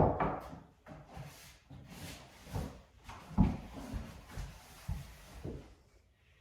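Irregular knocks, thumps and scuffs of objects being handled, the loudest at the start and about three and a half seconds in.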